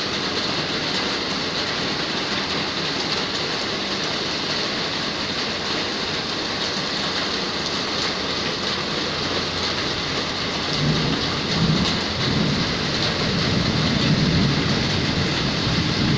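Downpour of rain, a steady dense hiss. From about eleven seconds in, an uneven low rumble joins it.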